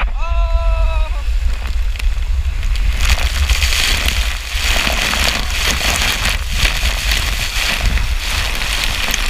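Rushing water and wind buffeting the camera during a fast ride down a body water slide, with a short high-pitched yell at the very start. The splashing spray grows much louder about three seconds in.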